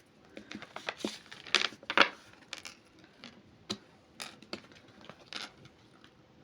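Tarot cards being handled, stacked and laid down on a table: a quick string of short taps and slaps, loudest between one and two seconds in, then thinning out.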